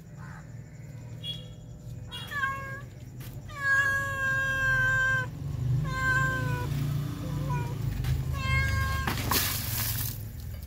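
Ginger tabby street cat meowing over and over, about six meows, one drawn out for well over a second in the middle, begging to be fed. A short burst of noise comes near the end.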